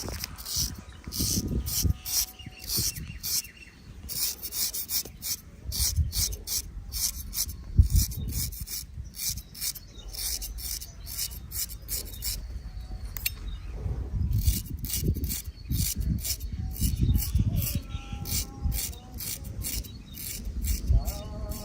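A razor scraping over hair and stubble in many quick, short strokes, each one a dry rasp.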